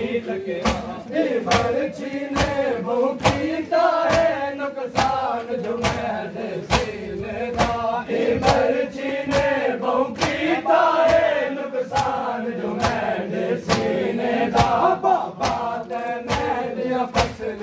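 A crowd of men chants a Punjabi noha together, over sharp matam slaps of hands striking bare chests. The slaps keep a steady beat of roughly three every two seconds.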